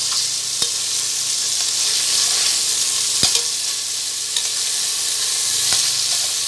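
Chicken wings sizzling steadily as they fry in oil in an aluminium pressure-cooker pot. A metal spatula clicks against the pot three times as the pieces are turned.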